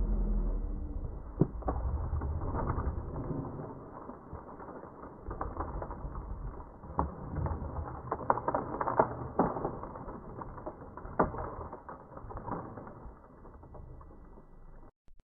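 Low rumbling of wind buffeting the microphone, easing after about four seconds, with scattered sharp clicks and knocks throughout.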